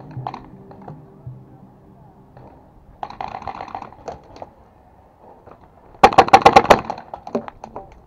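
Paintball marker fired in a rapid burst of about a dozen shots in under a second, about six seconds in; a quieter, shorter burst of paintball fire comes about three seconds in.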